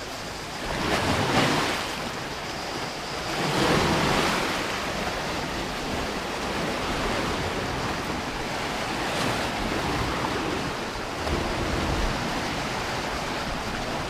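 Strong sea waves breaking and washing over rocks along the shore, a steady rush of surf that swells loudest about a second in and again around four seconds in.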